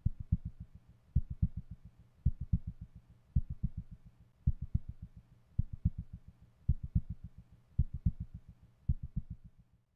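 Heartbeat-like sound effect: low, deep thumps in a steady rhythm, one strong beat a little more than once a second with fainter thumps dying away after each.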